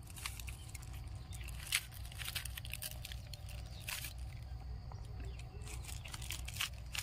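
Plastic 3x3 puzzle cube being twisted by hand, its layers giving short irregular clicks and clacks several times a second, over a steady low rumble.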